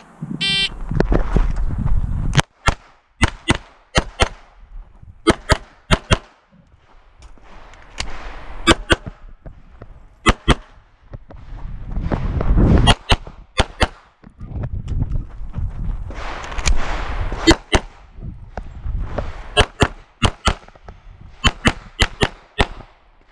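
A shot timer's start beep, then a Beretta 92 9mm pistol firing many quick pairs of shots (double taps), in several groups with short gaps between them.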